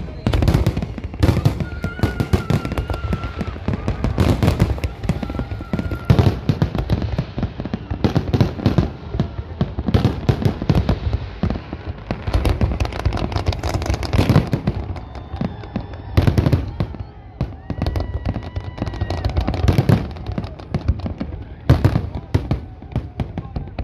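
Fireworks display: aerial shells bursting in many sharp bangs and crackles, coming thick and irregular with hardly a pause.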